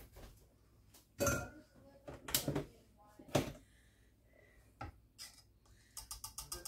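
Kitchen utensils knocking and scraping against a speckled enamel saucepan of thick cornmeal mush. A handful of separate clanks from the whisk and spatula are followed near the end by a quick run of light taps.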